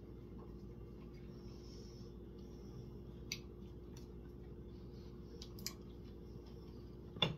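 Quiet room tone with a steady low hum and a few faint, brief clicks, about three seconds in, again a little later, and near the end.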